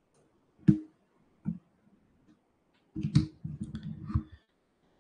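A sharp click about a second in, a fainter one soon after, then a second and a half of clattering knocks and rustle close to the microphone.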